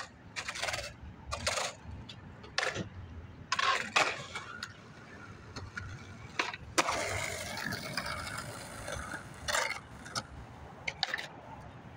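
Skateboard wheels rolling and scraping on pavement, with several sharp clacks of the board, and a longer steady stretch of rolling about seven seconds in.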